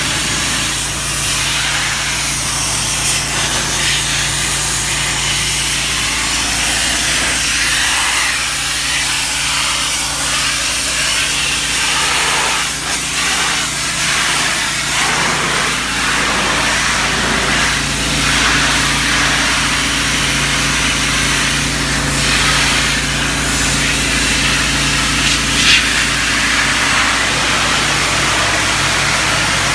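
Pressure washer running, its engine humming steadily under the hiss of a high-pressure water jet blasting droppings off a building.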